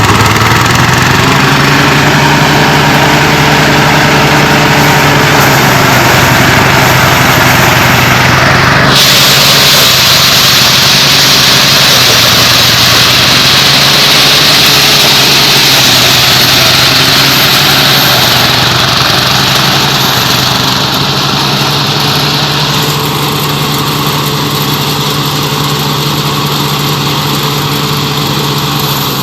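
Engine of a rice-harvesting machine running steadily. A loud, harsher hiss joins about nine seconds in and eases off a little later.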